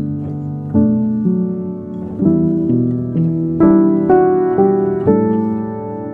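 Background music: a piano tune, notes struck and left to fade, about two a second.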